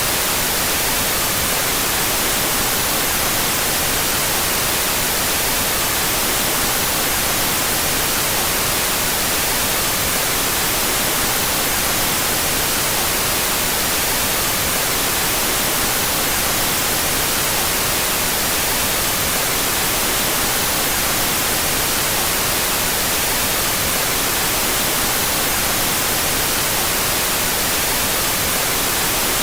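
Steady white noise, an even hiss with the two stereo channels played out of phase, unchanging throughout.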